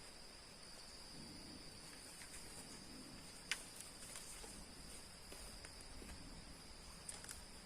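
Faint, steady high-pitched insect chirring, with one sharp click about halfway through and a couple of lighter clicks near the end.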